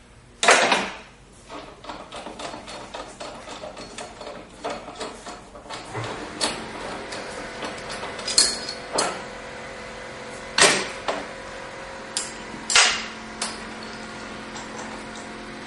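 Steel wrenches clinking and knocking against the wheel nut and arbor of a tile bullnose machine as the wheel is loosened for a wheel change: a series of sharp metallic knocks, the loudest about half a second in and again near 10 and 13 seconds.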